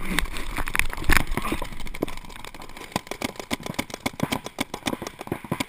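Paintball markers firing: a rapid, uneven string of sharp pops, several a second, louder in the first couple of seconds.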